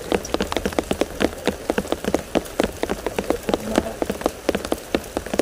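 Light rain, heard as many separate drops hitting surfaces close by, several a second at irregular intervals.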